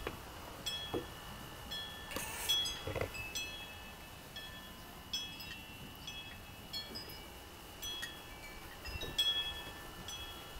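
Wind chimes ringing in light, irregular strikes, with high tinkling notes that hang on after each strike. A short rustle comes about two seconds in.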